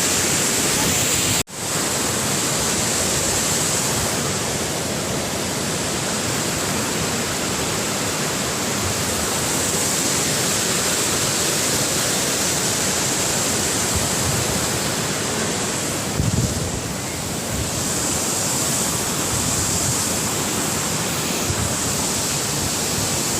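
Waterfall rushing steadily, a continuous even roar of falling water. It cuts out for an instant about a second and a half in, and a short low rumble of wind on the microphone comes about two-thirds of the way through.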